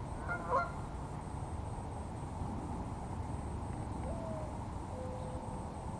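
A bird calling: a brief call just after the start, then low, steady cooing notes from about four seconds in, over a steady background hiss.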